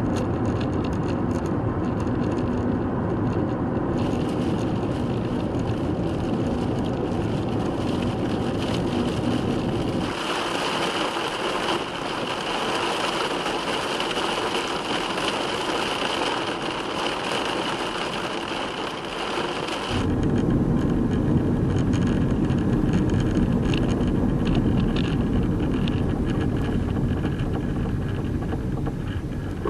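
Car driving slowly with a knocking from under the bonnet that keeps time with the wheel's rotation, a fault that appeared after rain and shows below about 40 km/h. The running noise changes character sharply about ten seconds in and changes back about ten seconds later.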